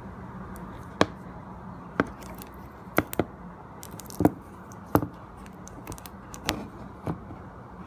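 Sharp clicks and light knocks from a smartphone and its parts being handled, roughly one a second and sometimes in quick pairs, over a steady low hum and hiss.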